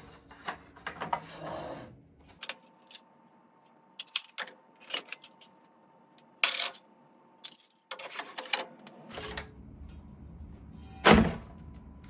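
Old smoke detectors and their metal bases being handled on a wooden table: scattered clicks, knocks and clatter as the detector heads are twisted on their bases and set down, with one louder knock near the end.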